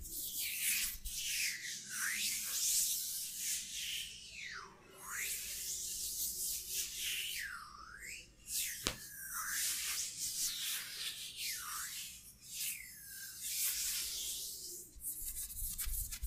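Hands rubbing together and sweeping close to a microphone: soft swishing that slides up and down in pitch as the hands move, with one sharp tap about nine seconds in.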